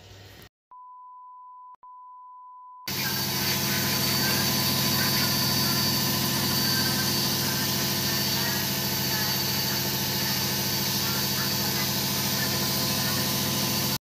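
A steady high beep tone, briefly broken once, then from about three seconds in an Electrolux front-loading washing machine running steadily at high speed: a loud, even motor hum and whine of the drum spinning, with its drum shock absorbers newly replaced.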